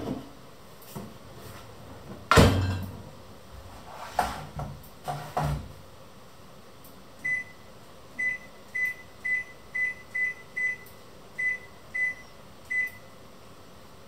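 A few knocks and thuds, the loudest about two seconds in, then about ten short high beeps at uneven spacing, like buttons being pressed on a kitchen appliance's keypad.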